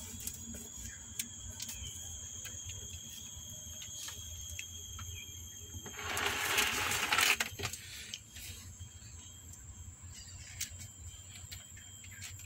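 A rustling scrape lasting about a second and a half, about six seconds in, as a hand reaches into a paper-lined plastic box. Underneath it there is a steady high-pitched tone and scattered light clicks.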